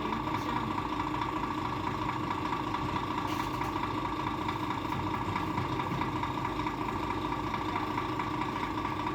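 A vehicle engine idling steadily, with a constant hum over it.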